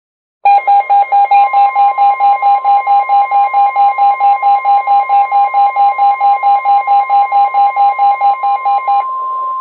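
NOAA Weather Radio receiver alerting: a loud, fast beeping alarm, about five beeps a second, over the steady warning alarm tone, which carries on alone briefly after the beeping stops. It heralds a special marine warning.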